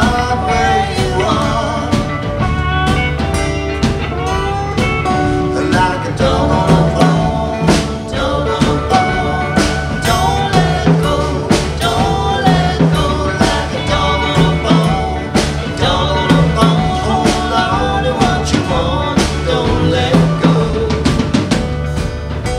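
Live band playing a song: strummed acoustic guitar and electric guitars over bass and a drum kit keeping a steady beat.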